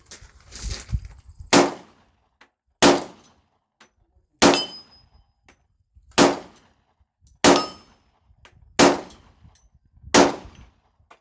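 Seven single shots from a Glock 20 10mm pistol, fired at a steady slow pace about one and a half seconds apart, each a sharp crack with a short echoing tail.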